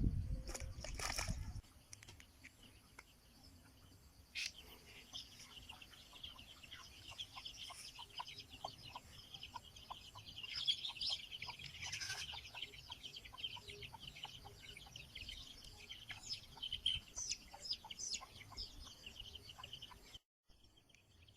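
Chickens clucking, with a steady layer of high chirping behind them. A short low thud comes right at the start.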